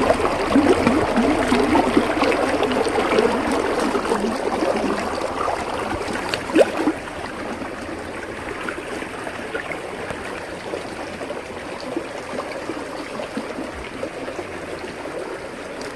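Water of a small rain-fed forest waterfall running over rocks. It is louder and bubblier for about the first seven seconds, then drops to a steadier, quieter flow. A brief knock comes about six and a half seconds in.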